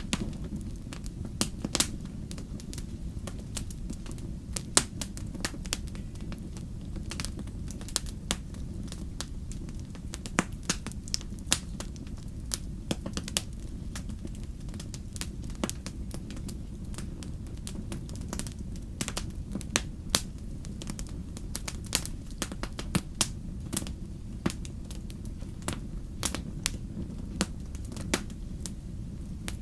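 Wood fire crackling in a fireplace: irregular sharp pops and snaps over a steady low rumble of flames.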